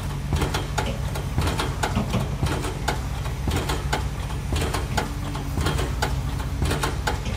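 Heavy diesel construction machinery on a sheet-piling site running with a steady low hum. Rapid, irregular knocks or clicks sound over it, two or three a second.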